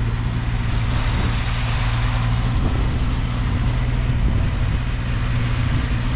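Snowblower engine running steadily under load, with a constant hiss over its hum.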